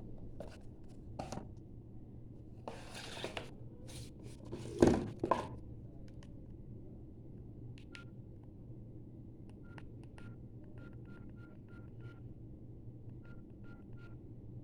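Samsung Metro 313 keypad phone's keys being pressed, each press giving a short click and beep, irregularly a few times a second. Before that come handling clicks and rustles, and a single louder knock about five seconds in.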